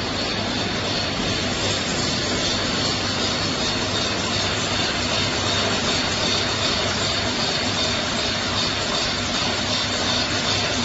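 Juice bottling line running: a steady roar of conveyor and filling machinery with a low hum and a faint high whine.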